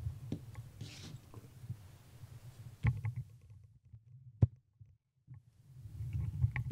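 Calico cat purring, a low, rapidly pulsing rumble that breaks off briefly near the middle, with a few sharp clicks over it.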